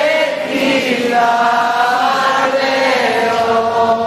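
Voices singing a slow hymn together, holding long, steady notes that shift pitch slowly.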